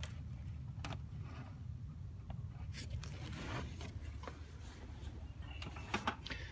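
Faint rustling and light clicks from the phone being handled and moved, over a steady low hum.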